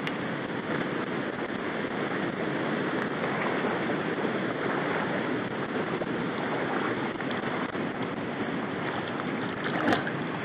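Shallow river water rushing steadily over rocks in a riffle, with a brief knock near the end.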